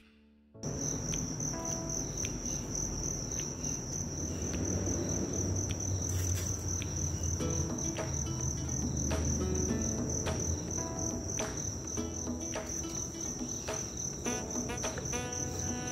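Crickets calling in a steady, high-pitched chorus that starts about half a second in, over a low background rumble, with scattered clicks.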